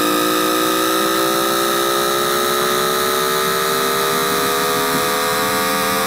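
Times Electric VVVF traction inverter of a metro train, picked up through an inductive coil: an electronic whine of several tones climbing slowly and steadily in pitch as the motors speed up, over a steady higher tone and a hiss. The inverter is running in direct self control mode.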